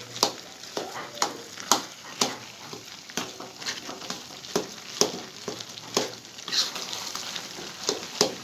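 A spatula scraping and knocking against a frying pan about twice a second as a large mass of scrambled eggs is stirred and broken up, over a steady sizzle of frying.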